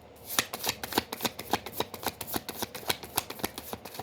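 Tarot deck being shuffled by hand: a quick, dense run of card snaps and flicks that starts about half a second in.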